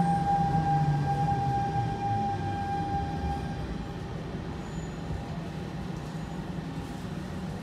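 Siemens C651 metro train's traction motors and inverter winding down as it brakes into a station: a low tone falls in pitch while a steady high whine fades out about three and a half seconds in, leaving a steady low hum.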